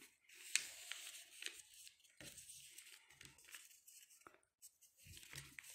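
Faint rustling and crinkling of a sheet of origami paper being folded and creased by hand, with a few short, sharp crackles.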